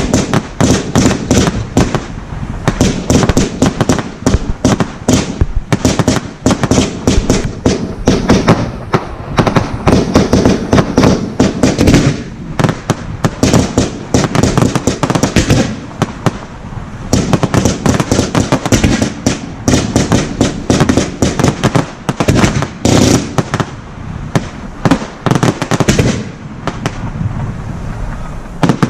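Professional firework display in full flow: a rapid, unbroken barrage of shell bursts and launch bangs, many per second, with crackling between them.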